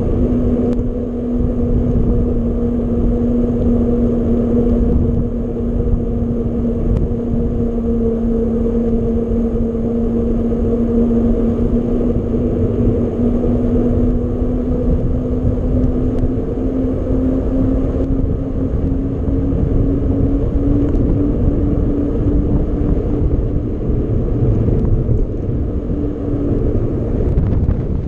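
Rumble of a mountain bike ride with wind buffeting the microphone, and a steady hum that creeps slightly higher in pitch in the second half.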